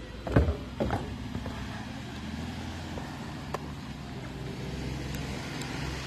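A steady low engine hum of passing road traffic, getting slightly louder toward the end, with a couple of sharp thumps in the first second.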